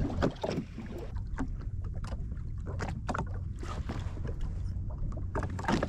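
Water lapping against the hull of a drifting Sea-Doo jet ski, over a low steady rumble, with scattered small clicks and taps and one louder tap near the end.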